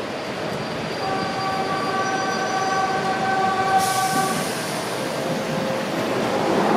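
Docklands Light Railway train at the platform: a steady whine of several tones for about three seconds, a hiss starting about four seconds in, then a whine rising in pitch near the end as the train begins to move.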